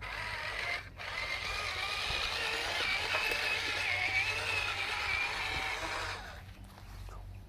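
Small electric motor and plastic gearbox of a remote-control toy construction vehicle whining as it drives. The sound breaks off briefly just before a second in, then runs on with a wavering pitch until it stops about six seconds in.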